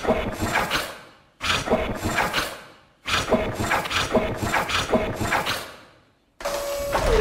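Robot sound effect: three bursts of rapid mechanical clicking and clanking, each starting suddenly and dying away, with a faint whirring tone under them. Near the end a louder, steadier stretch begins, with a held tone that dips briefly in pitch.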